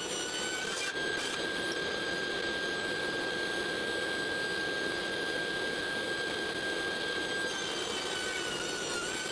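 Table saw running with a steady whine while an upright board is fed through the blade on a tenoning jig, cutting a tenon cheek. The pitch dips slightly near the end.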